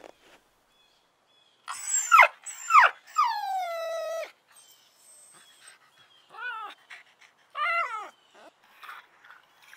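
Canine whining: two short falling yelps, then a longer cry that slides down and holds. Two short whimpers follow, a few seconds later.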